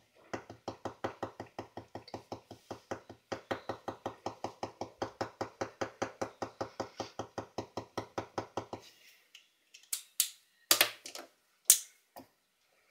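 Ink pen tip tapping rapidly on paper over a wooden desk, an even run of about five quick taps a second that stops a little past the middle. A few louder, sharper pen strokes on the paper follow near the end.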